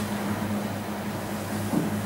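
Steady low mechanical hum over room noise.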